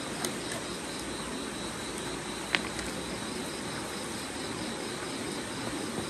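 Insects, crickets among them, chirping steadily with a faint pulsing note, and one sharp click about two and a half seconds in.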